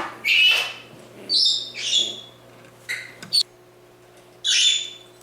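Pet parrot giving a series of short, shrill calls and squawks, about five in all, spaced roughly a second apart, with a quieter gap before the last one near the end.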